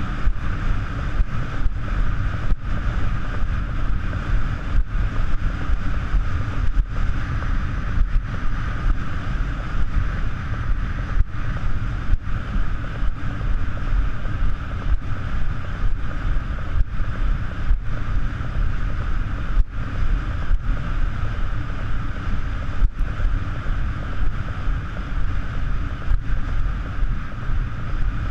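Wind buffeting the microphone in a loud, steady low rumble with a constant hiss above it, broken by many brief dropouts.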